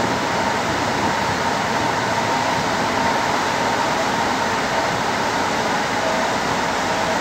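Mexico City Metro train running steadily, heard from inside the carriage: a constant rumble and rush of running noise with a faint steady whine over it.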